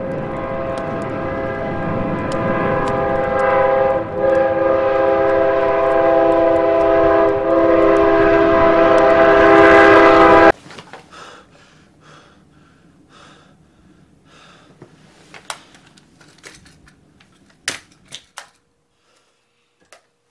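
Train horn blaring as a held chord over a rumbling train, growing louder for about ten seconds and then cutting off suddenly. Faint scattered clicks and crackles follow.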